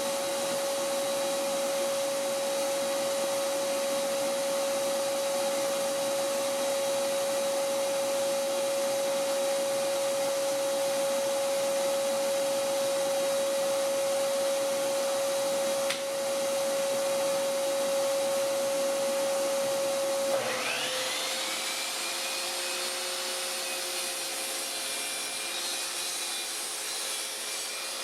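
A dust-extraction vacuum runs steadily with a constant hum. About two-thirds through, a second motor spins up with a rising whine, the 15-amp motor of a sliding miter saw with a 12-inch blade, and keeps running alongside the vacuum.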